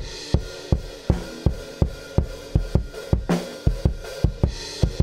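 Recorded kick drum track, with snare and cymbal spill, playing a steady beat of about three kicks a second through a FabFilter Pro-C 2 compressor whose ratio is being turned up, so the hits are squashed harder.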